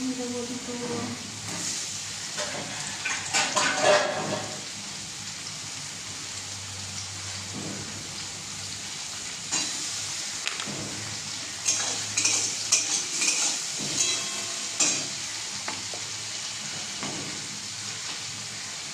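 Food sizzling in a steel wok on a gas stove, a steady frying hiss. Metal utensils clink and scrape against the pan in clusters, about three to four seconds in and again from about twelve to fifteen seconds in.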